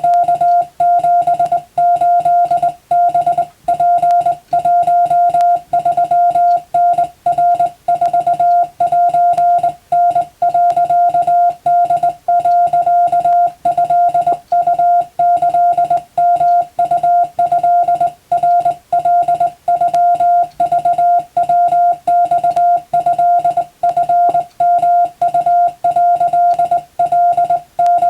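Morse code (CW) sent as a single steady beep keyed on and off in dots and dashes, with short pauses between characters. It is wabun (Japanese-language) telegram text for radiotelegraph operator exam practice.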